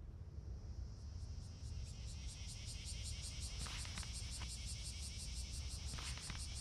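Summer insects chirping in a steady, fast, even pulse over a low background rumble, with a few faint ticks around the middle.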